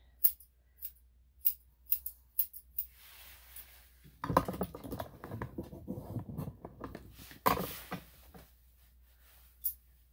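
Grooming shears snipping the fur on a small dog's face, a sharp snip about every half second for the first three seconds and single snips later on. From about four seconds in there is a few-second stretch of rustling, handling noise.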